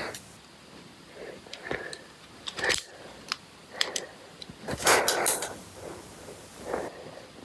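Lego Technic plastic pieces clicking and clattering as a Lego butterfly knife is swung open and shut by hand: scattered sharp clicks and knocks, with a louder cluster of them about five seconds in.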